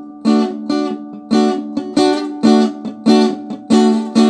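Guitar strumming the closing chords of a song, about one strum every half second, with no singing. A final chord is struck near the end and left ringing.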